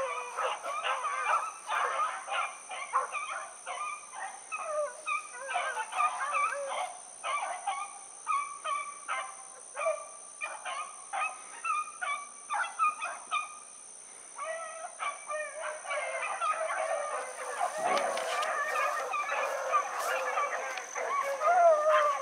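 A pack of rabbit hounds baying in chorus as they run a rabbit's trail, many voices overlapping. The chorus thins briefly past the middle and grows fuller in the last few seconds.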